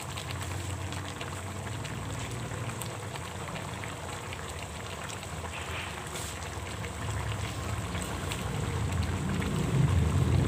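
Chicken adobo sauce simmering in a pan: a steady crackle of small bubbles popping, over a low hum that grows louder near the end.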